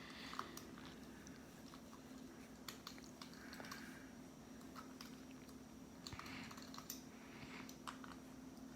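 Faint scattered clicks and taps from handling the opened Kindle's small parts, over a faint steady hum.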